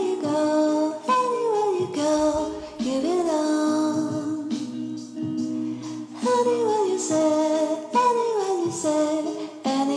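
Background music: a singing voice in slow, falling phrases over steady held notes of accompaniment.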